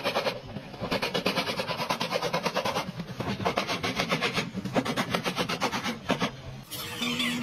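Fast runs of hammer taps on a car's sheet-metal trunk-lid panel, many blows a second, broken by short pauses.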